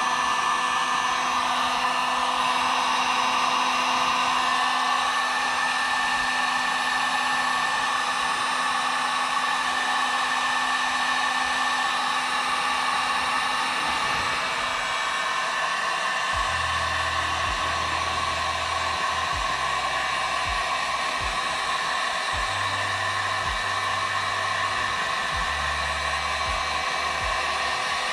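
Electric heat gun blowing steadily, shrinking heat-shrink tubing over wiring connections. A thumping bass line from background music comes in about halfway through.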